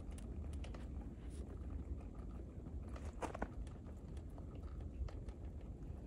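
Footsteps crunching in fresh snow: scattered soft crunches with a louder pair about three seconds in, over a steady low rumble.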